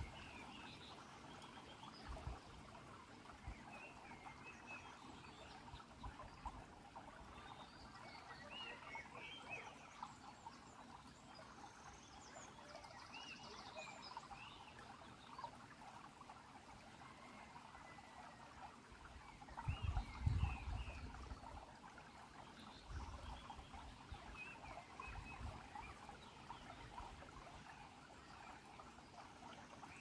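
Shallow stream trickling steadily over pebbles, faint, with scattered high chirps from small creatures and a few low bumps, the loudest about twenty seconds in.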